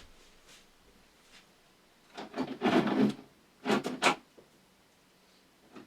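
Objects being handled and shifted about, with rubbing and knocking noises in a cluster around the middle and two short sharp knocks just after, like a tool being fetched from a drawer.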